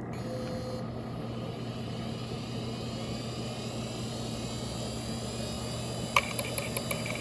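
Seagate Medalist ST34342A IDE hard drive spinning up with a faint rising whine over a steady hum. About six seconds in comes a sharp click, then a quick run of clicks from the heads seeking. The drive is failing, looping through failed reads and power-cycling itself.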